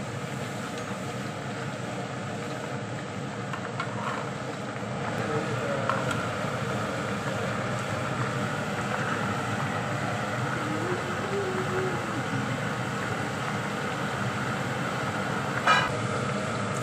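Okra pieces deep-frying in a kadai of hot oil: a steady sizzle that gets a little louder about five seconds in. Near the end a steel slotted frying spoon strikes the kadai once with a ringing clink.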